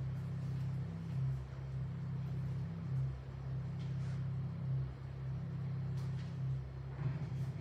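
Steady low hum of room noise, with a few faint clicks and rustles of paper being handled near the end.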